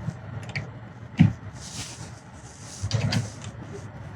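A sharp knock about a second in, a brief hiss-like rustle, then a few more knocks near the end.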